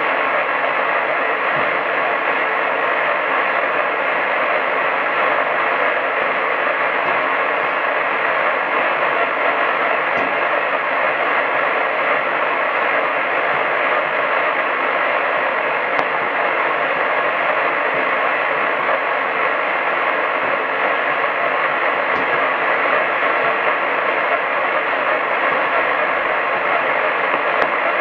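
Steady hiss of static from a medium-wave AM radio receiver, carrying no programme, with the dull, treble-less sound of the AM channel's narrow bandwidth and a few faint ticks.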